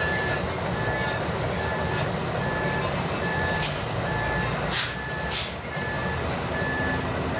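A heavy machine's travel or reversing alarm beeping steadily, about one beep every 0.8 s, over a diesel engine running. Two short hisses come just before and after the middle.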